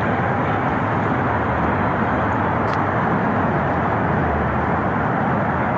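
Steady roar of road traffic, an even wash of noise with no distinct events.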